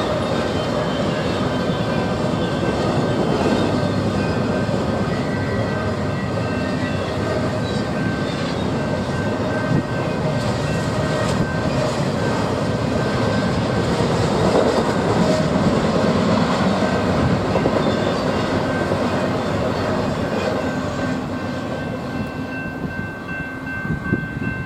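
Train passing on the rails: steady loud wheel-and-rail noise with a couple of thin high tones held over it, easing off near the end.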